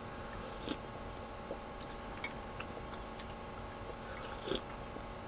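A person eating Maultaschen in broth from a spoon: soft chewing and mouth sounds with a few small clicks and smacks, over a faint steady hum.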